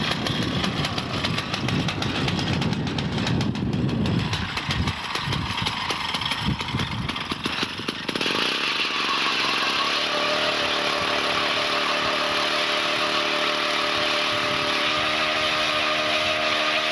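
A small engine revving up and down for about eight seconds, its pitch rising and falling. It then gives way abruptly to a steady sound with a few held pitches that shift twice.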